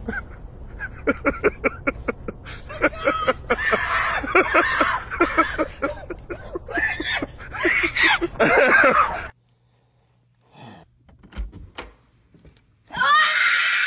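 Frantic yelling and shrieking in fright, many short cries in quick succession. It then cuts to a quiet room with a few faint clicks, and a loud cry with rising pitch breaks out near the end.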